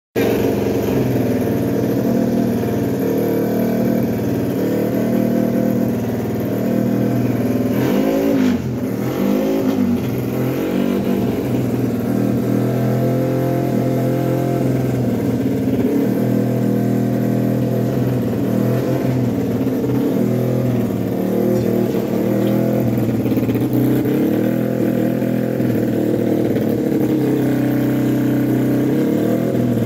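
Engine of a 150 cc single-cylinder racing underbone motorcycle running at a steady raised idle while it is warmed up before practice. Its speed wavers up and down briefly about eight to ten seconds in.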